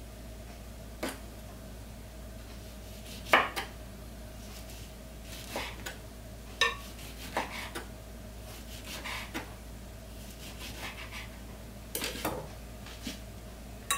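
Kitchen knife slicing a lemon on a wooden cutting board: about ten irregular sharp knocks of the blade meeting the board, the loudest about three seconds in.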